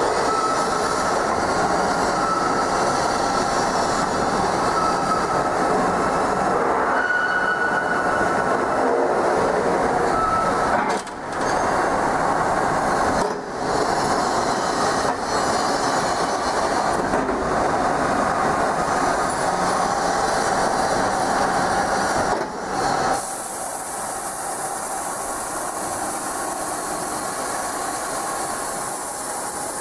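Industrial drilling machine running and cutting metal: a steady grinding noise with faint squealing tones and a few brief dips. About 23 seconds in it turns quieter and hissier.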